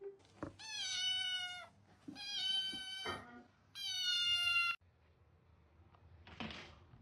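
Domestic cat meowing three times, each a drawn-out call of about a second with a slightly falling pitch, followed by a short noisy burst near the end.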